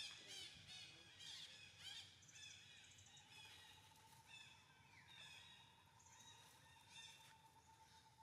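Young monkeys squealing faintly in a string of short, high-pitched calls while they play-wrestle, densest in the first two seconds and again a few seconds later. A faint steady whine joins about three seconds in.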